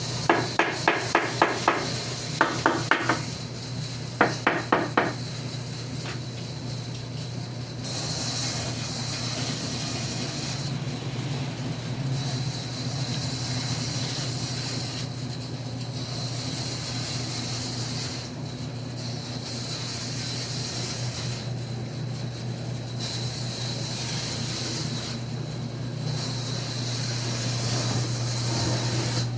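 Three quick runs of hammer blows, four to six ringing strikes each, in the first five seconds. After that comes a steady low hum with hiss.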